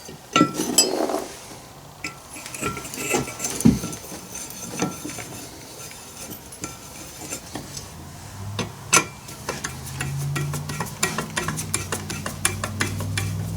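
Small metal clicks and taps of hand tools and bolts as a chainsaw's covers are being bolted back on, scattered at first and turning into a rapid run of clicks in the last few seconds. A low steady hum comes in past the middle.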